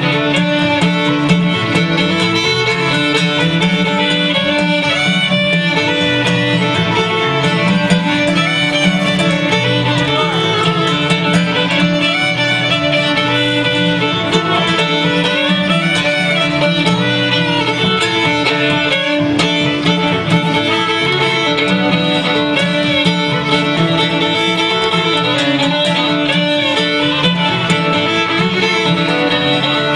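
Old-time fiddle tune played on fiddle with acoustic guitar accompaniment, the fiddle carrying the melody over the guitar at an even, steady level.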